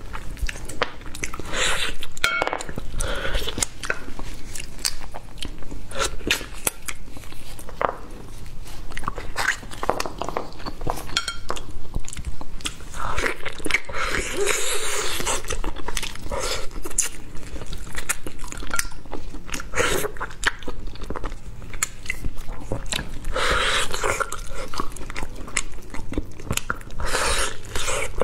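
Close-up biting and chewing of braised pig's trotters: gelatinous skin and meat being bitten, pulled and chewed, with many quick mouth clicks throughout.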